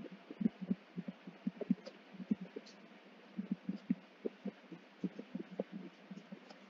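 Stylus tapping on a tablet screen while handwriting, an irregular run of quick dull taps.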